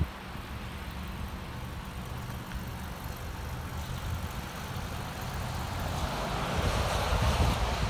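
Outdoor wind rumbling on the microphone with road traffic behind it. From about six seconds in, a vehicle's tyre hiss on wet pavement rises and falls away near the end.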